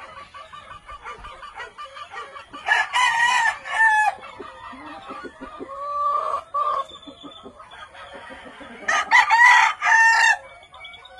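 Gamefowl rooster crowing twice, several seconds apart, with softer chicken calls in between.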